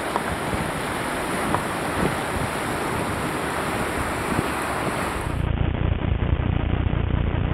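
Rushing whitewater of a river rapid: a steady roar of water mixed with wind on the microphone. About five and a half seconds in it cuts to a duller, deeper rumble.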